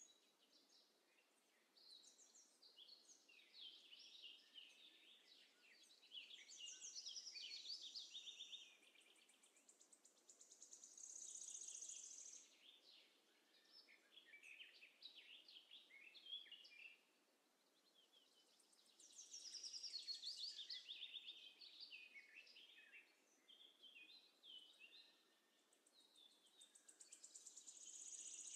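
Faint, quick high-pitched chirping and twittering of small birds, coming in bursts.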